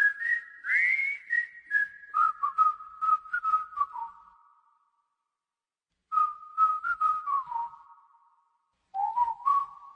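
A whistled tune in three short phrases, each stepping down in pitch, with quick clicks over the notes and brief pauses between phrases.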